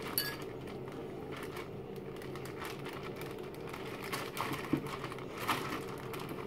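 Plastic zip-top bag crinkling and rustling in short bursts as it is handled and the fish is pushed into it, with a few light clicks, over a steady low hum.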